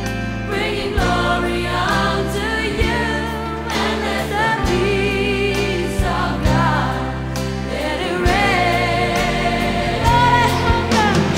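A gospel-style choir singing with instrumental backing: held bass notes under the voices and regular percussive beats.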